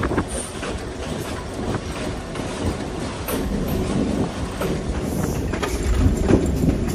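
CF7 diesel locomotive rolling along jointed track, heard from its cab: wheels clattering over rail joints under the running noise of the locomotive, growing louder near the end.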